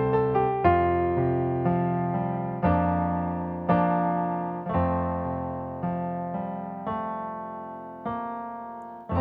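Slow, soft piano introduction: chords struck about once a second, each left to ring and fade, the overall level sinking and the last chord coming after a longer pause.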